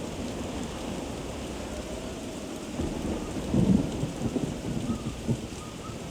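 Steady heavy rain with a rumble of thunder that breaks in about three seconds in, crackling loudest shortly after and dying away near the end.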